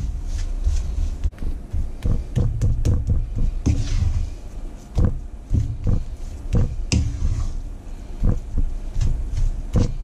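Wooden spatula scraping and knocking against a non-stick frying pan while stirring a thick, crumbly mixture of chickpea flour cooking in ghee, in irregular strokes a few times a second.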